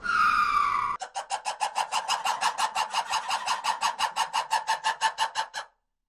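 Lemur calling: one drawn-out cry falling in pitch, then a fast, even run of short calls at about seven a second that stops abruptly near the end.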